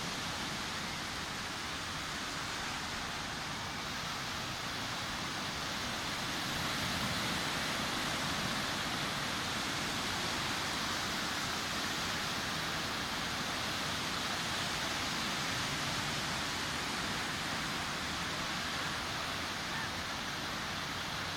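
Ocean surf washing onto a beach: a continuous, even rush of breaking waves that grows a little louder about seven seconds in.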